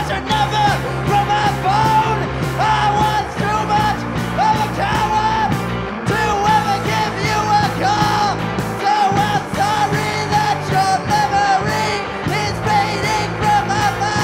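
Live rock band playing with a steady beat, led by an electric guitar on a repeating riff, with the singer yelling and singing over it.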